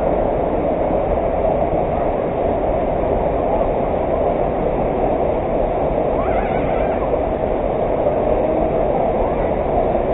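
Waterfall, its falling water rushing in a loud, steady, even noise.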